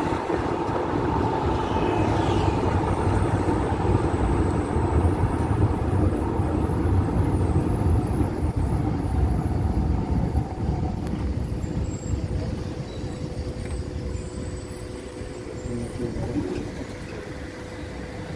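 Tram running on street rails, heard from on board: a steady low rumble with a faint motor whine. The rumble fades over the second half as the tram slows almost to a stop.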